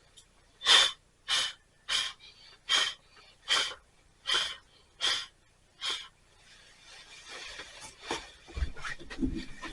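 Ferro rod struck with a scraper eight times in an even rhythm, each a short sharp scrape about two-thirds of a second apart, followed by a soft rising hiss and a few low thumps near the end.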